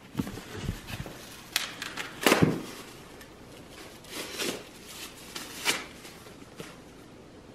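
Scattered knocks and rustling as stone corn-grinding tools are set down on a rug and a plastic bag is handled; the loudest knock comes a little over two seconds in.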